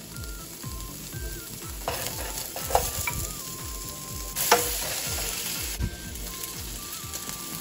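Garlic, onion and ginger sizzling in olive oil in a nonstick pan as browned fried pork belly cubes are slid in, with a few sharp knocks, the loudest about four and a half seconds in.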